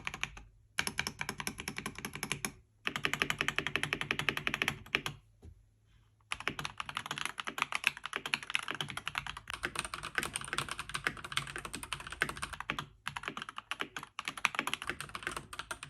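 Fast typing on a Keychron C2 mechanical keyboard fitted with Akko V3 Cream Yellow Pro switches: several runs of rapid key clacks with short pauses between them, a sound test of the keyboard before and after its tape and foam mods.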